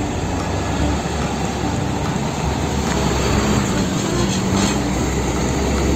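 Heavy Isuzu truck hauling a loaded tipper trailer, its diesel engine running and tyres rumbling on the road as it drives close past, a steady low rumble with road noise.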